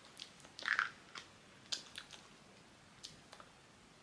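Quiet mouth sounds of someone tasting a breath-freshening mouth spray just sprayed into the mouth: a short breathy puff about a second in, then scattered soft lip smacks and clicks.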